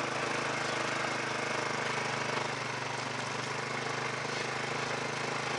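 Small engine of a farm vehicle running steadily with an even, low drone as it moves along.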